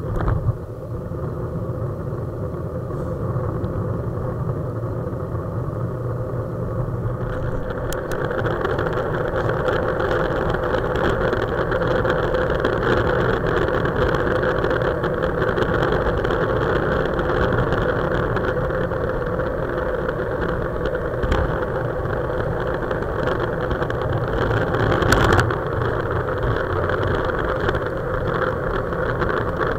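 Wind rushing over a handlebar-mounted camera and the tyre noise of a road bicycle riding at speed, a steady rumble that grows louder about seven seconds in as the bike speeds up. A brief knock sounds near the end.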